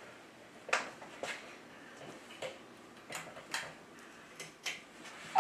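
Faint, scattered light knocks and clicks, about seven of them spread unevenly, from someone moving about a quiet small room.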